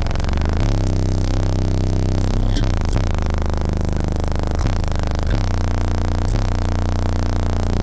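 Bass-heavy music played very loud through a wall of Resilient Sounds subwoofers, heard inside the vehicle: a deep, sustained bass line that moves to a new note every second or two.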